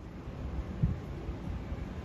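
Wind buffeting a phone's microphone, a low fluttering rumble, with a brief low bump about a second in.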